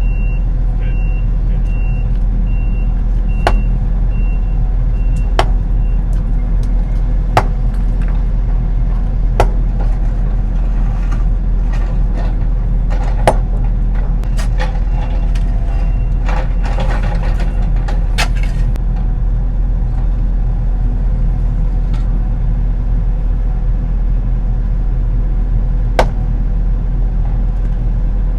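Excavator's diesel engine running steadily while it works, with a machine warning beep pulsing in the first few seconds. Sharp knocks come every couple of seconds, and the bucket scrapes for a few seconds past the middle.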